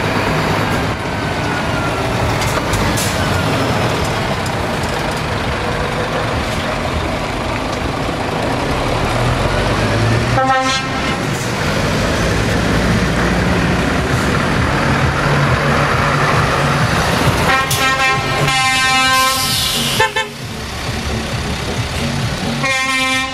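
Scania trucks' diesel engines running as they pull out and drive past, with horns sounding: one short toot about halfway through, a run of longer blasts about three-quarters of the way in, and another blast at the very end.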